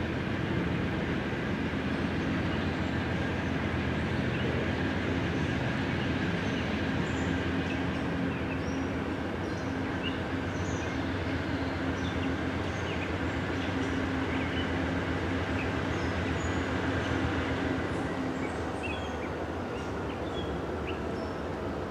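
Diesel locomotive engines running steadily out of sight, a low drone that eases off slightly near the end, with birds chirping over it.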